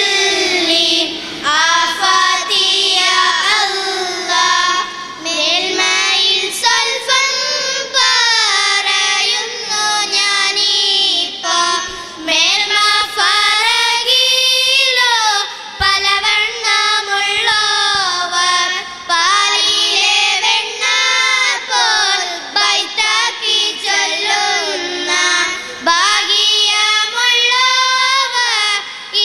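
A group of girls singing a song together into microphones, their voices in phrases broken by short breaths.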